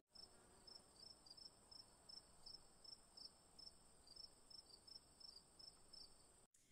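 Near silence, with a faint steady high-pitched tone and faint short high chirps repeating about three times a second.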